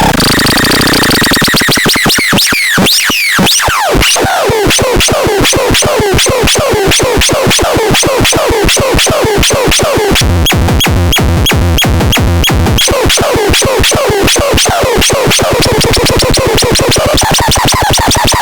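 Micro Tanz 2 electronic sound generator playing a dense, glitchy synthesized pattern: rapid clicking pulses with repeated falling pitch sweeps, and a low pulsing bass entering for a couple of seconds about ten seconds in.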